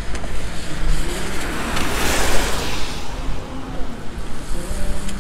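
A car passing close by: its tyre and engine noise swells up and fades away about two seconds in, over a steady low rumble.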